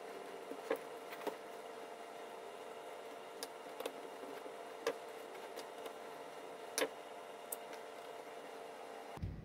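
Scattered sharp clicks and taps of a screwdriver working the screw terminals of a PLC power supply module while the wires are tightened in, over a steady electrical hum. The hum cuts off abruptly near the end.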